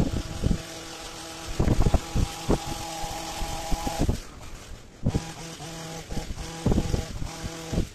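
Pole hedge trimmer's small engine running steadily at cutting speed, dropping away for about a second midway and then picking up again. Irregular gusts of wind thump on the microphone.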